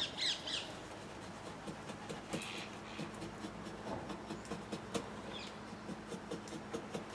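Draw knife (push knife) paring a birch handle blank: a run of short, irregular shaving and scraping strokes on the wood, a few louder ones right at the start.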